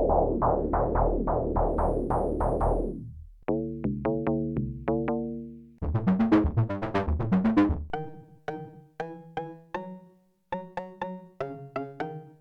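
Arturia MicroFreak synthesizer playing short preset patterns one after another: a dense pulsing sequence over a low bass, then plucked notes repeating about twice a second, changing sound every few seconds.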